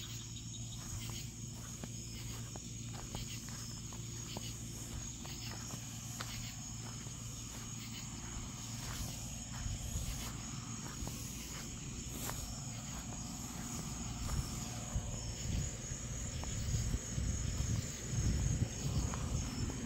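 Crickets chirping steadily in a high, continuous trill, with low rumbles and thumps of handling or movement growing louder in the last several seconds.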